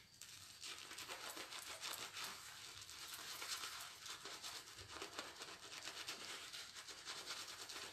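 Shaving brush working shaving-soap lather on the face: a faint, steady wet scrubbing with fine crackling of the foam.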